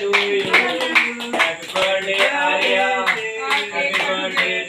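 A small group of people singing a birthday song together, clapping hands in a steady beat.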